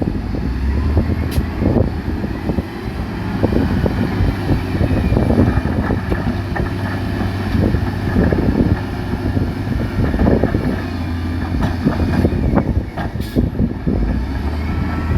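Diesel engine of heavy earth-moving machinery running under load, a steady low rumble with frequent irregular knocks and clatter.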